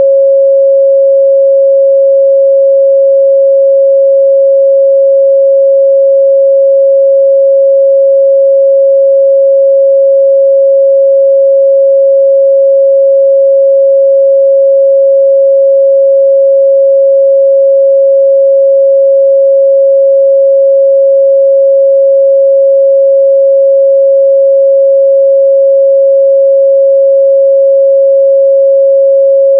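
A steady 547 Hz sine-wave test tone, one pure unchanging pitch held at a constant loud level.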